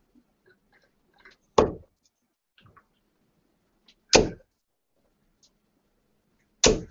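Three darts hitting a bristle dartboard one at a time, about two and a half seconds apart: three sharp, loud thuds that die away quickly.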